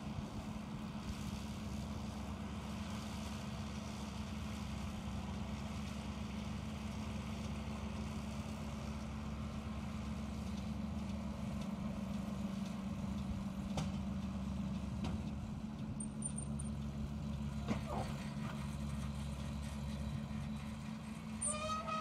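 John Deere 6330 tractor's six-cylinder diesel running steadily under load, powering a Welger RP 245 round baler baling haylage. A brief pitched sound comes in just before the end.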